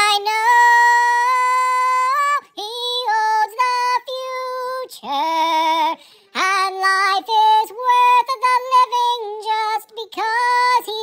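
High-pitched singing voice: one long held note with vibrato at the start, then a string of short sung phrases broken by brief pauses.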